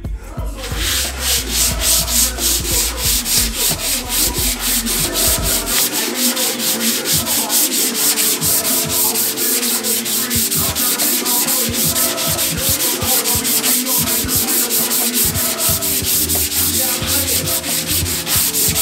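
Hand dry-sanding with a Dura-Block sanding block over epoxy primer on a steel engine-bay wheel tub: steady back-and-forth scratchy strokes, about two to three a second. The primer is being sanded smooth through a black dry guide coat so the base coat can adhere.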